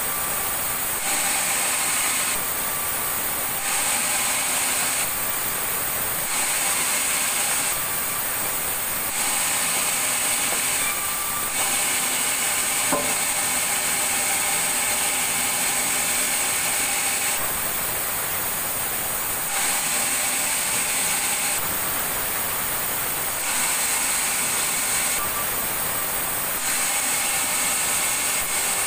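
Sawmill saw running through timber: a steady, loud hissing machine noise whose character shifts every second or two.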